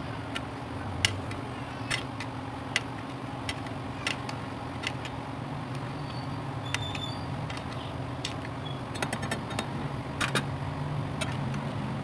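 Whole chicken frying in a wok of hot oil: a steady sizzle broken by scattered sharp pops and crackles, with a brief flurry of pops about nine to ten seconds in, over a low steady hum.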